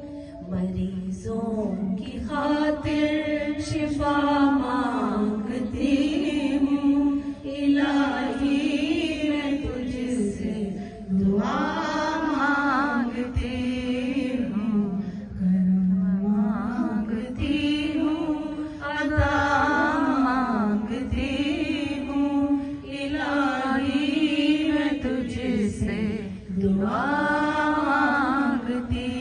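Women's voices chanting a devotional naat in long, wavering melodic phrases of a few seconds each, amplified through microphones.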